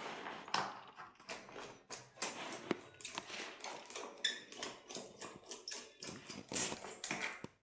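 A screwdriver taking screws out of a laptop's plastic bottom cover: an irregular run of small clicks and scrapes, a few a second.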